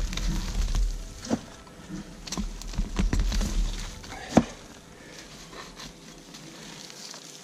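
Sieved garden soil being tipped and shaken onto the ground: scattered pattering, rustling and light knocks with handling noise, a sharp knock about four seconds in, then only faint rustling.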